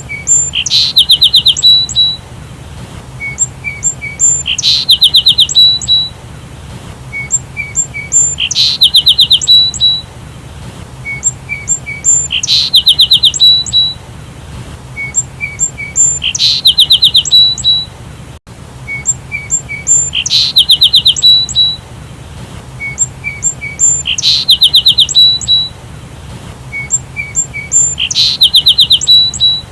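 Sparrow chirping: a few short chirps, then a quick trill of about ten notes. The same phrase repeats at even spacing, about every four seconds.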